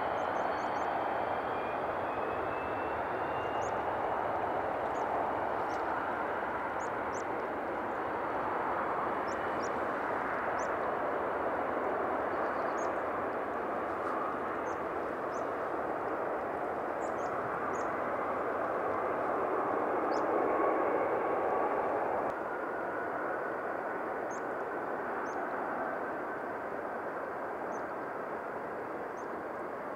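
The four CFM56 turbofan engines of a Douglas DC-8 run at takeoff power through the takeoff roll and liftoff: a steady jet roar with a high whine that drops slightly in pitch in the first few seconds. The roar is loudest about two-thirds of the way in, then falls off a little.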